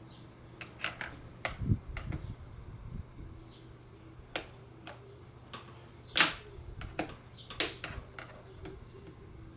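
Sharp clicks and snaps of a screwdriver prying the clips off a Ducati SuperSport 1000's plastic air box lid, loudest a little after six seconds in, with a brief low knocking of handling around two seconds in.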